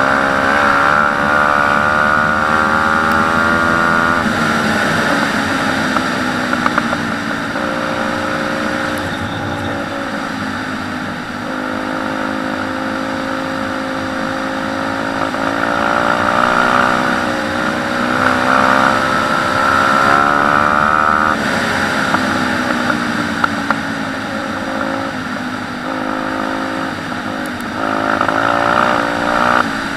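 Pit bike's single-cylinder four-stroke engine running hard at speed, its pitch climbing with the revs and falling or dropping sharply at gear changes, a couple of times.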